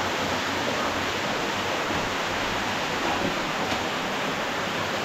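Steady rushing of flowing stream water, an even noise that holds at one level.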